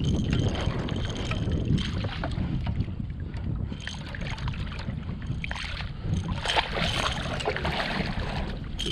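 Water sloshing and splashing against a fishing kayak while a big blue catfish is brought alongside, over a low rumble of wind on the microphone, with scattered knocks and splashes, the busiest about two-thirds of the way through.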